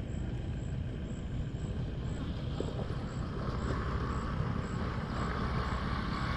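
Honda Postie bike's small single-cylinder four-stroke engine running steadily, growing gradually louder.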